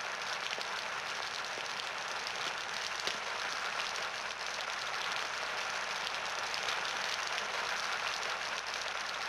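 Steady hiss of falling rain, an even dense patter with one small click about three seconds in.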